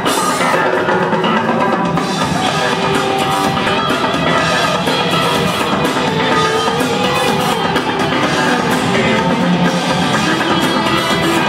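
Live rock band playing loud: drum kit, electric bass and guitar through the concert PA, with the deep bass end coming in about two seconds in.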